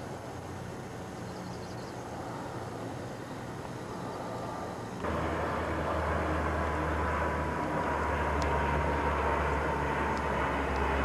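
Steady outdoor rushing noise that steps up suddenly about five seconds in, joined by a distant engine drone whose pitch slowly falls over the second half, as of a vehicle or aircraft going past.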